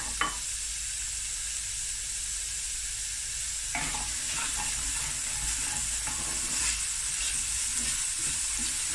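Chopped onion and garlic sizzling in hot oil in a stainless steel pot, with a wooden spoon scraping and stirring through them from about four seconds in.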